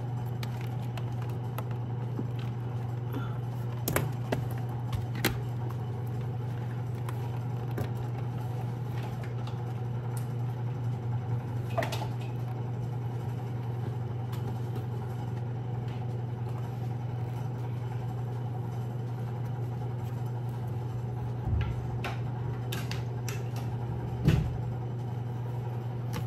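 A steady low hum with no change in pitch, with a few scattered light clicks and knocks of small objects being handled, the loudest about three-quarters of the way through.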